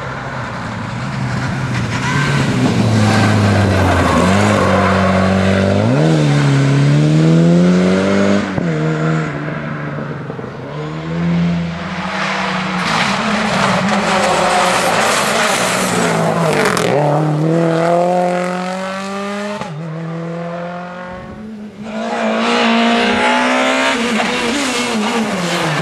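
Rally cars driven flat out one after another, their engines climbing in pitch through each gear with short drops at the upshifts. A Škoda Fabia S2000 is accelerating near the end.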